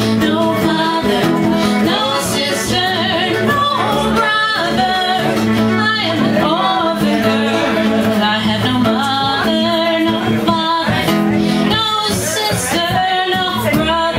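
Live acoustic string band playing a folk song: a woman sings lead over upright bass, mandolin, acoustic guitar and fiddle.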